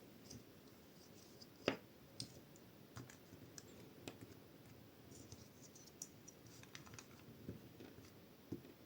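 Small plastic clicks and taps of LEGO bricks being handled and pressed together, irregular and light, with one sharper click a little under two seconds in.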